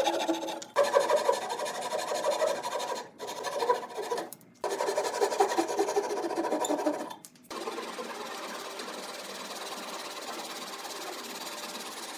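A small power tool running in stretches, stopping briefly three or four times, then running on more steadily and more quietly for the second half.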